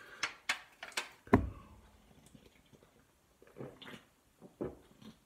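A beer can handled with a few light clicks and a dull knock about a second and a half in, then soft gulps of someone drinking from it, a few swallows about a second apart in the second half.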